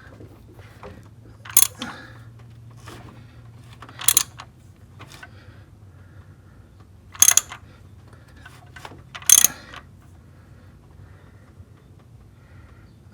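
Four short bursts of ratchet clicking, a few seconds apart, with lighter metal clicks between: a ratchet wrench on the crankshaft pulley bolt, turning the 3.6 L V6 over by hand to bring the timing marks into position.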